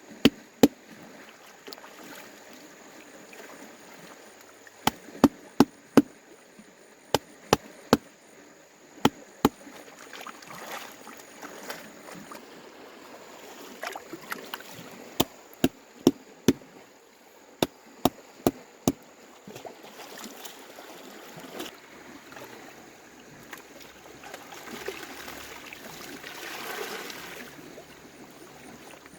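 Sharp chopping strikes in quick runs of three or four, over a low hiss, then a rushing, water-like noise near the end.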